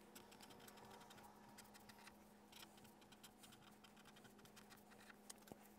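Faint scratching of a pen writing on notebook paper, in many short irregular strokes.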